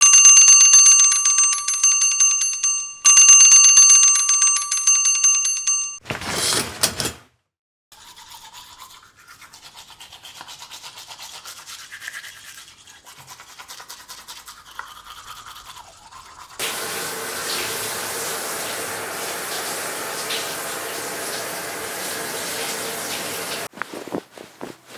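A bell ringing with rapid repeated strikes in two bursts of about three seconds each, followed by a short noisy burst and a moment of silence. Faint rapid ticking follows, and from about two-thirds of the way in, a steady hiss that stops shortly before the end.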